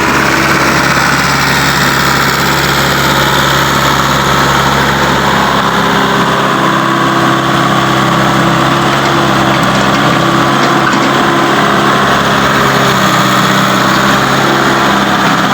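Heavy diesel engine of earthmoving equipment or its carrier truck running steadily at a low, even speed.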